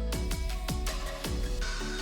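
Background music with a steady beat of deep, falling kick drums under held tones.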